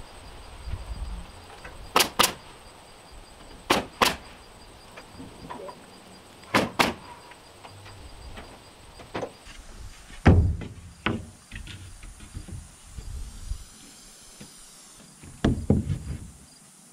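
Nail gun firing nails into wooden batten strips: three quick pairs of sharp shots in the first seven seconds, followed by scattered lighter knocks of boards and tools being handled against the wall.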